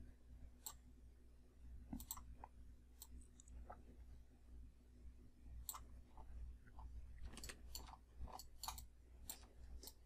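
Faint, scattered clicks of a computer mouse and keyboard against near silence, coming in a quick cluster near the end.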